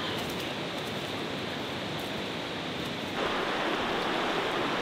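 Steady rush of a shallow river flowing over a rocky bed, louder from about three seconds in.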